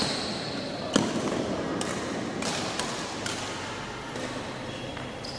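Badminton rackets striking the shuttlecock in a rally: a string of sharp hits ringing in a large hall, the loudest about a second in. Short squeaks from shoes on the court come near the start.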